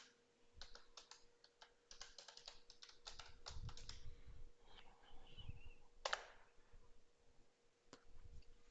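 Computer keyboard keys clicking faintly in short bursts of typing, then a couple of single key presses near the end.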